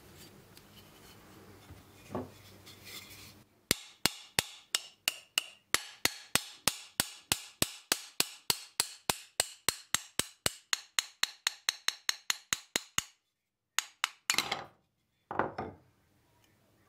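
A small hammer tapping steadily on a steel plane iron, about four sharp metallic strikes a second, each ringing briefly. Near the end come two short scraping rubs.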